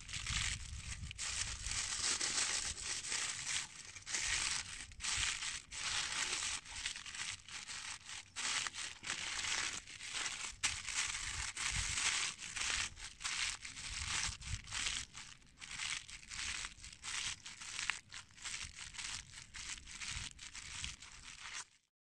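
Aluminium foil crinkling and crumpling in dense, irregular crackles as it is folded and pressed tightly around a fish; it stops abruptly near the end.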